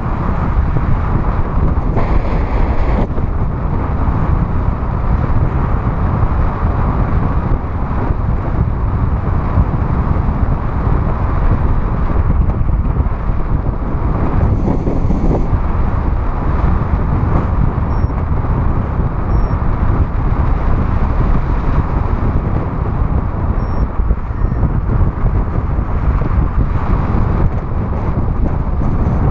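Steady wind noise on the microphone of a paraglider pilot's camera, a low rushing blast from the airflow of flight that stays at an even level with slight surges.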